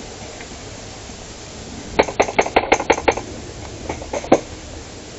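Airsoft fire: a quick string of about seven sharp cracks about two seconds in, then three more spaced out a second later.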